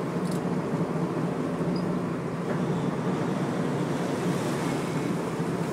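Sportfishing boat's engines running with a steady hum.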